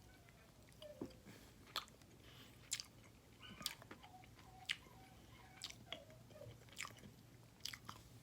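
A person chewing crispy, honey-glazed fried chicken bites close to the microphone, with faint sharp crunches about once a second.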